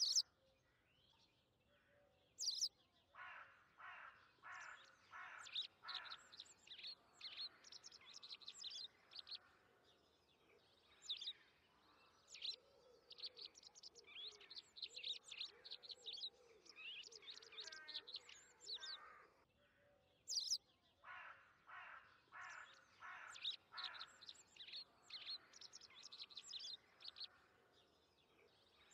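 Wild birds chirping and calling in the trees: many quick high chirps, with two runs of about six rapid, evenly spaced lower notes, one a few seconds in and another about two-thirds through. Three sharp ticks stand out as the loudest sounds.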